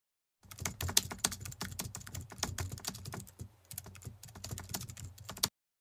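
Rapid, irregular keyboard typing clicks: a typing sound effect for on-screen text being typed out. They begin about half a second in, ease off briefly a little past halfway, and stop abruptly near the end.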